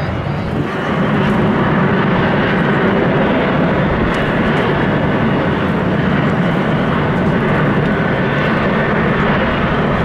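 Airliner's engines running, loud and steady, getting louder about a second in and then holding level.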